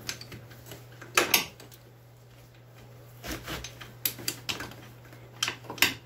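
Wrench clicking and clanking on metal bolts while loosening the steering box mounting bolts on a side-by-side. There are short, irregular clicks, the loudest about a second in and a cluster near the end.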